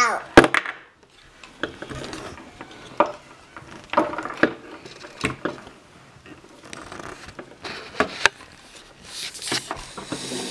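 Plastic Buzz Lightyear action figure being handled and posed: scattered clicks and knocks of its hard plastic limbs and joints, some against a wooden tabletop, with light rubbing between. The sharpest knock comes just after the start.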